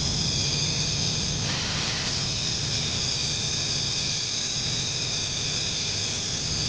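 Electric angle grinder with a cutting disc cutting through a wrought iron bar: a steady high whine with hiss. The hiss thickens about a second and a half in as the disc bites, and the grinder cuts off abruptly at the very end.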